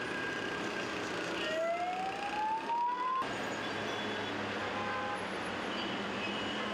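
Street traffic, with a siren rising in pitch for about two seconds that cuts off suddenly about three seconds in, then steady traffic noise.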